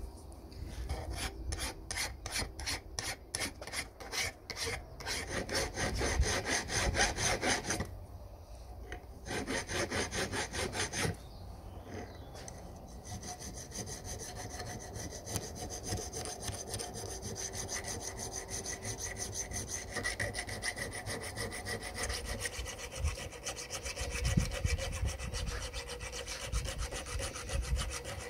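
Rhythmic scraping strokes of abrasive hand work, about three a second at first, then quicker and denser. After that comes a steadier rubbing, with a few faint steady tones running through it.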